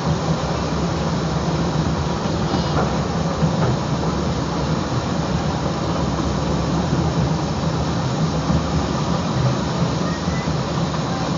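A small 4-4-0 steam train running at speed, heard from just behind the locomotive's tender: a steady noise of the wheels on the rails and the working engine.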